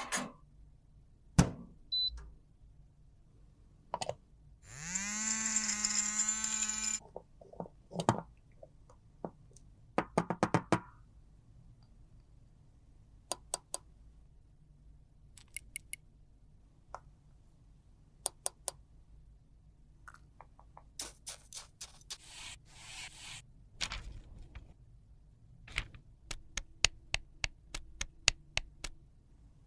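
Close-up clicks, taps and knocks of hand tools and cosmetic containers being handled. About five seconds in there is a two-second electric hum that rises in pitch and then holds steady. Near the end comes a quick run of sharp clicks as a metal powder press is worked over a mold.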